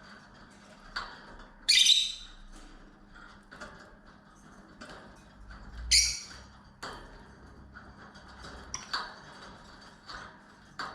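Pet lovebirds squawking: two loud, shrill calls about two and six seconds in, with softer short chirps between them.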